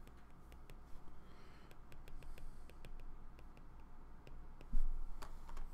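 Apple Pencil tip tapping and clicking on a tablet's glass screen while handwriting, many quick irregular clicks, with one louder thump near the end.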